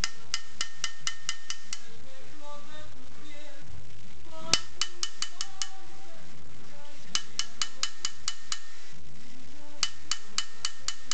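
Small hammer tapping a steel punch into a silver bracelet strip: sharp metallic taps in four quick runs of six to eight strokes, about five a second, with short pauses between them. Background music plays underneath.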